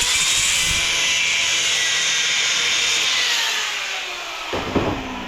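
Angle grinder cutting metal with a loud, steady whine. From about three seconds in, its pitch falls as it spins down, and there is a clunk near the end.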